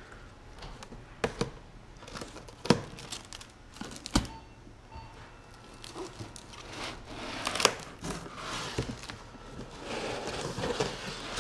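Clear plastic wrap crinkling and tearing, with several sharp knocks and scrapes of foam packing blocks against a cardboard box as a large RC boat is lifted out.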